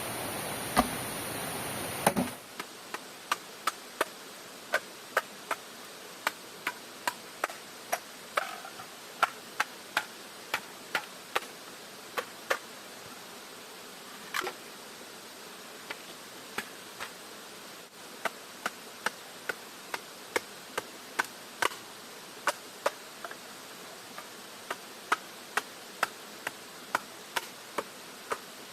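A steady hiss, like rain, stops abruptly about two seconds in. Then comes a long series of sharp knocks, one or two a second, with a few short pauses.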